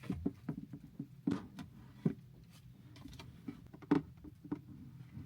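Scattered light clicks and knocks as the tray and removable holder of a Frigidaire mini portable refrigerator are handled, with the sharpest knock about four seconds in.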